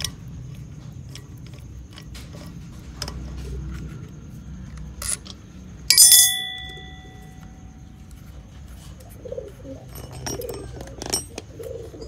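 Small metallic clicks and scrapes of a star key working the valve-head bolts of a refrigerator compressor. About six seconds in comes one sharp metal clink that rings briefly.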